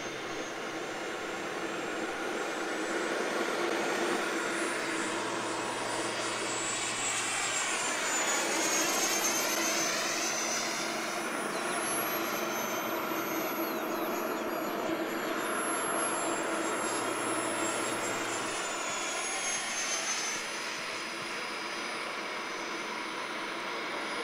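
Electric ducted fan of an RC jet (a JP 90mm metal fan on a 6S battery) whining in flight as the model passes. It swells to its loudest about nine seconds in, and its high whine falls in pitch as it goes by.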